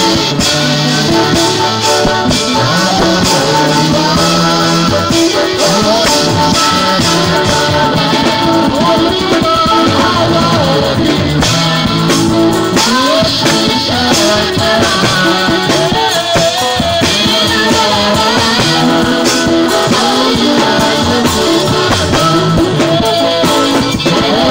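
Live band music: a drum kit's toms and cymbals played steadily under guitar and singing voices.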